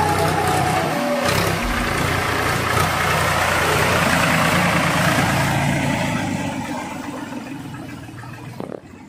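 Powertrac Euro 50 tractor's diesel engine running under load as it hauls a loaded trolley through mud. It passes close by and fades steadily over the last three seconds as it moves away.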